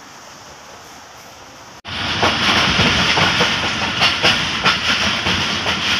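Passenger train running, heard from the carriage doorway: wheels clattering over the rails under a steady rushing noise. It comes in suddenly about two seconds in, after a quieter steady hiss.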